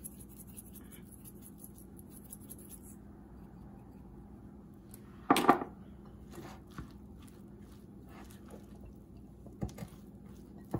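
Salt and pepper shakers shaken over a bowl, with quick fine rattling ticks for the first few seconds. A single loud cough comes about five seconds in, set off by the pepper. After that a silicone spatula stirs the chicken, rice and broccoli filling in a glass bowl, with soft clicks and scrapes.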